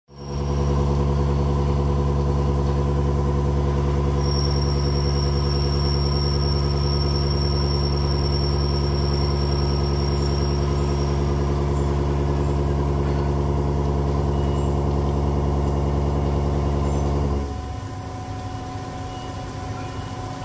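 2005 Cincinnati V5-3000 CNC mill cutting into a metal plate: a loud, steady machining hum, with a thin high whine over it from about 4 to 11 seconds in. About 17 seconds in the hum drops away and a quieter machine running sound carries on.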